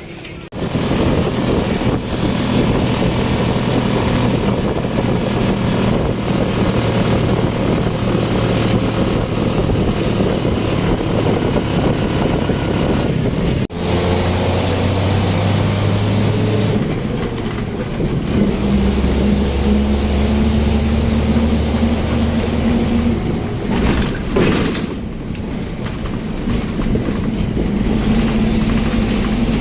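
ATV engine running under way, its low engine note steady over a constant rushing noise. The engine note shifts abruptly about 14 seconds in and again near 25 seconds.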